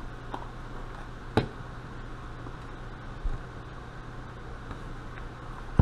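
Small hand-tool sounds while a Carter mechanical fuel pump's cover screws go back in: a sharp metallic click, a duller knock, then another sharp click near the end, from a screwdriver and Phillips screws handled against the pump. A steady low hum runs underneath.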